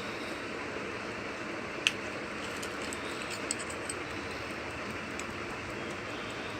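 Small metal clicks from handling a key-wound silver hunter-case pocket watch and its winding key: one sharp click about two seconds in, then a few faint clicks, over a steady background hiss.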